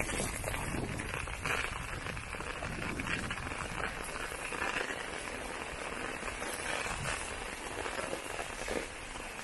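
Heavy rain falling steadily: a dense, even hiss made of many small drop impacts.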